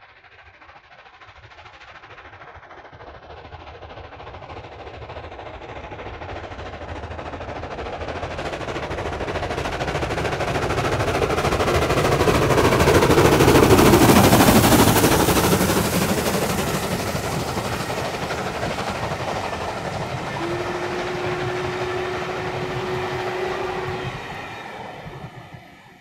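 Ivatt Class 4MT 2-6-0 steam locomotive, the 'Flying Pig', working a passenger train past: its exhaust beats grow steadily louder as it approaches and are loudest about halfway through as the engine goes by. The coaches then roll past more evenly, and a single steady note sounds for about three seconds near the end before the train fades away.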